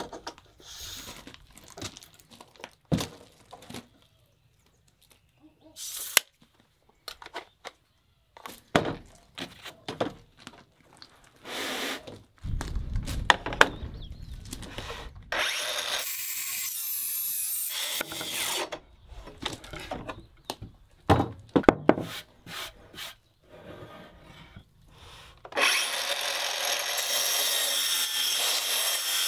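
Track saw, a plunge-cut circular saw riding a guide rail, cutting through a wooden formwork board. It runs through the board twice, a cut of about three seconds partway through and a longer one starting near the end. Knocks and clatter of the rail and board being set up come before.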